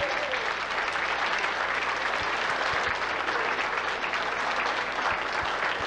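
Crowd applauding steadily, a dense clapping with no music under it.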